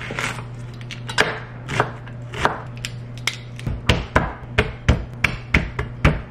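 Chef's knife chopping on a wooden butcher-block cutting board, mincing onion and garlic. Spaced knocks at first, then a quicker steady run of about four or five strokes a second.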